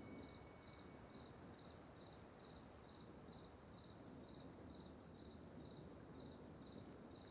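Faint cricket chirping, a steady high chirp repeating about twice a second over quiet background hiss, as a held music note dies away in the first second.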